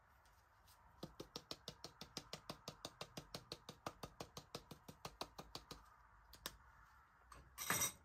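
A tin of sweet paprika shaken over a glass bowl, a quick, even run of clicking shakes, about six a second, for some five seconds. A single click follows, and near the end a short, louder clatter.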